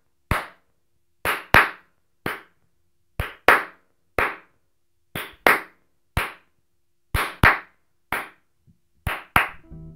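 Hands clapping a steady rhythm: a quick pair of claps, then a single clap, the pattern repeating about every two seconds with silence between.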